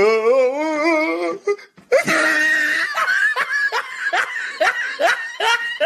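Hearty belly laughter: one long wavering laugh for about the first second and a half, then after a short break a quick run of "ha" bursts, two or three a second.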